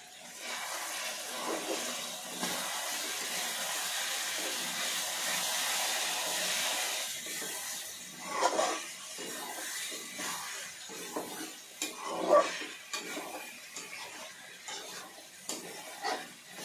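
Chicken frying in oil in a kadai, sizzling with a sudden onset and holding for about seven seconds. After that, irregular short scrapes and knocks of stirring in the pan, two of them louder.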